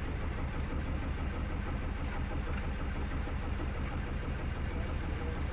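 Tour boat's engine running steadily with a low, even drone.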